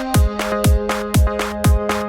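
Electronic dance-style background music with a steady beat: a kick drum about twice a second under held synth chords, with a high tick between the kicks.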